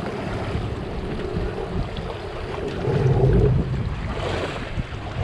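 Strong wind buffeting the microphone over choppy sea water sloshing against a small boat's hull, with heavier buffeting about three seconds in.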